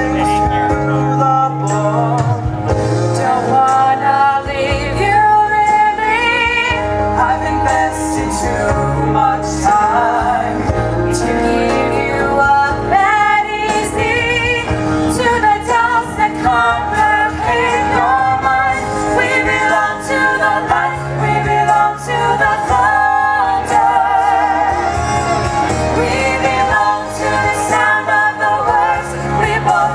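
Live show tune sung by male and female voices into microphones, backed by a full orchestra of strings and winds.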